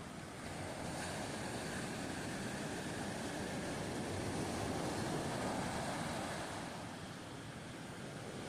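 Surf washing up a sandy beach, a steady rush that swells and eases, with some wind on the microphone.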